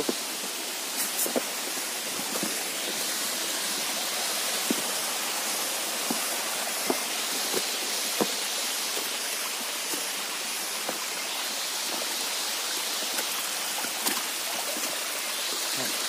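Shallow rocky stream running over stones, a steady rush of water. Occasional light knocks and crunches of boots stepping on rocks and debris in the stream bed.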